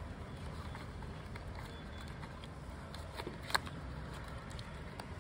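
Faint rustling and light taps of paper instruction booklets being folded and tucked into a cardboard box, with one sharper click about three and a half seconds in, over a steady low background rumble.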